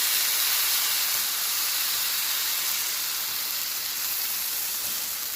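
Seasoned ground beef sizzling in a hot pan as beef stock is poured in: a steady hiss of steam that eases a little over the seconds.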